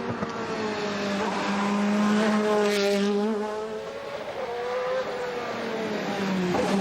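Toyota GT-One's 3.6-litre twin-turbocharged V8 racing engine running, its pitch rising and falling as it is driven.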